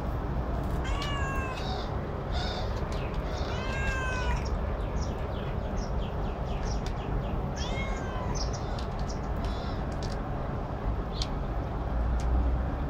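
Domestic cat meowing three times, about a second in, around four seconds in and near eight seconds, each call bending in pitch, over a steady low rumble.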